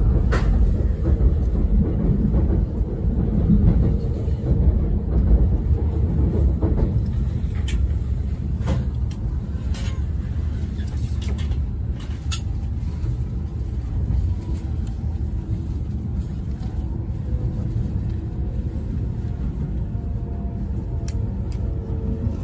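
Steady low rumble of a moving passenger train heard from inside the carriage, with a few short clicks and a faint whine in the second half as it runs into a station.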